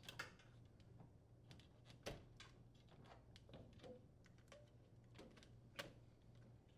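Faint, irregular small clicks and taps of wire connectors being pulled off a microwave oven's control board, over a low steady hum.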